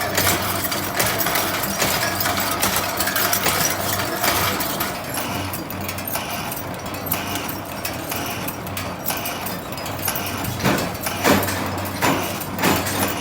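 Factory machinery running: a steady hum under continual clatter, with a few sharper knocks near the end.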